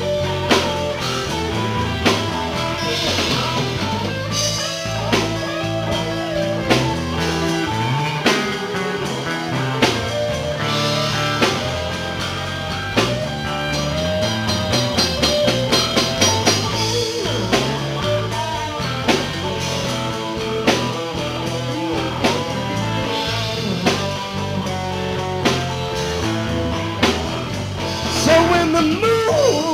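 Live blues-rock band playing: electric guitars and bass guitar over a steady drum-kit beat, with a busier drum fill about halfway through.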